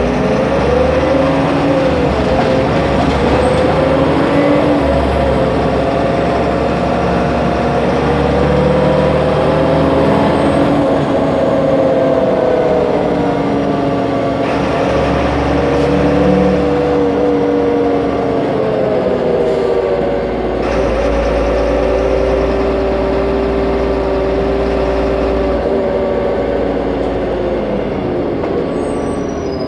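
Solaris Urbino 15 city bus under way, heard on board: its engine and drivetrain hum and whine, the pitch rising and falling slowly with road speed, over a steady low rumble. The pitch drops near the end as the bus slows.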